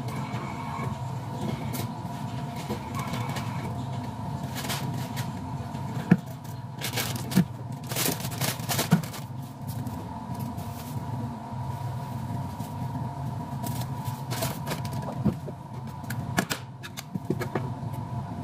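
Steady machine hum with a few faint steady tones. Through the middle come several short crackles of a plastic carry bag and a sharp knock about six seconds in, as drink cups are handled and bagged.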